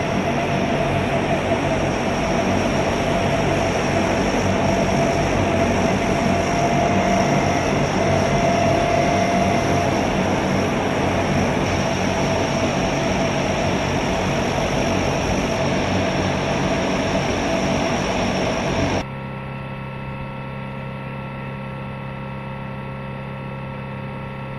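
Super Guppy's turboprop engines running loud and steady with propellers turning, a steady whine over the noise. About 19 seconds in the sound cuts abruptly to a quieter steady hum.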